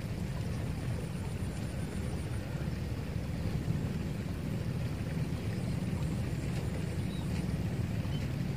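Steady low rumble with no clear pitch and no break.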